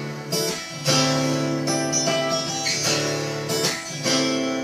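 Acoustic guitar strumming chords, each chord struck about once a second and left to ring, between sung lines of a song.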